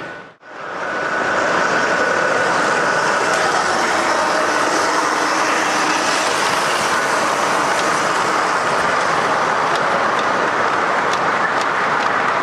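Gauge 0 model train passing, an SBB Re 4/4 I electric locomotive model hauling freight wagons, a steady rolling noise from its wheels on the track against the hum of a busy hall. The sound drops out briefly about half a second in, and a few light clicks come near the end.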